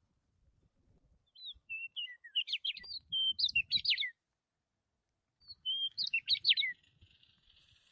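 A songbird chirping in two phrases of quick high chirps and short whistles. The first starts about a second and a half in, the second about five and a half seconds in.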